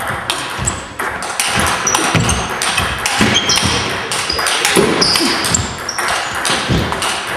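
Table tennis rally in an echoing sports hall: quick sharp clicks of the ball striking the bats and table, with short high squeaks of shoes on the wooden floor and low thuds of the players' footwork.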